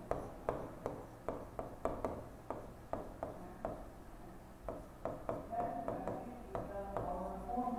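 Pen tapping and clicking against the screen of an interactive smart board as words are written, in short irregular taps about two to three a second.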